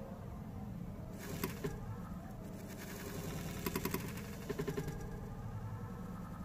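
Three short runs of quick, light clicks and scratches over a steady low hum, as a Chinese red-headed centipede lunges at metal tweezers and scrambles across the hard plastic floor of its enclosure.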